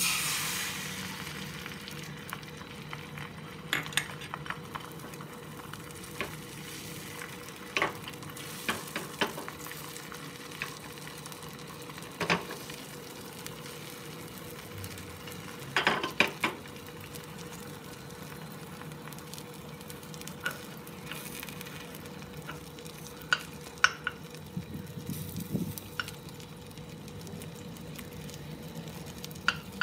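Beaten eggs hitting hot oil in a pan with a loud sizzle, then frying into a thin omelette with a steady hiss. Scattered sharp taps break through the hiss.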